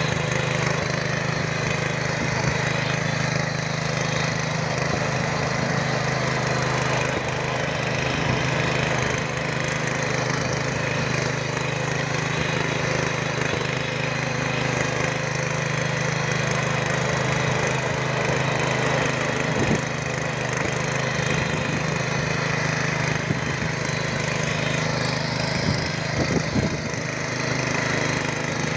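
BG1000B-2 walk-behind rotary tiller running steadily under load, its small engine droning while the tines churn through soil, with a few sharp clicks later on.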